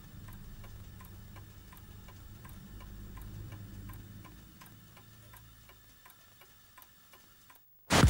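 A clock ticking steadily, about two ticks a second, over a low hum that fades away. Near the end it drops out to silence and a short, loud burst of sound cuts in.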